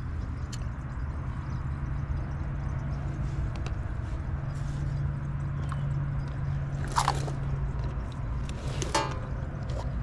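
Heat pump outdoor unit running steadily in heating mode, a constant low hum from the compressor and condenser fan, with its suction pressure pulled into a vacuum. Two short rattling clicks about seven and nine seconds in, as hand tools are handled.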